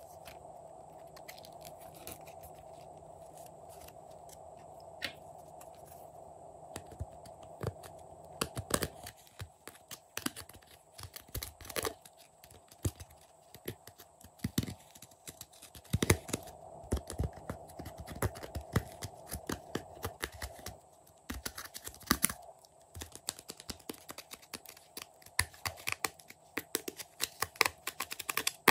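A small metal spatula scraping and tapping pressed eyeshadow out of a plastic makeup palette: irregular sharp clicks and short scratches, sparse at first and coming thickly from about eight seconds in, over a faint steady hum.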